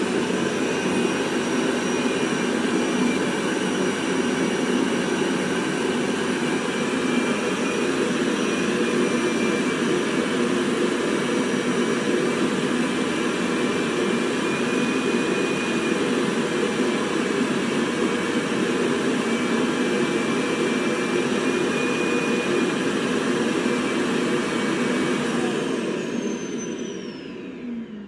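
Roborock S7 MaxV's self-emptying dock running its suction motor loudly and steadily, pulling the dust out of the robot's bin into the dock's bag. Near the end the motor spins down with a falling whine.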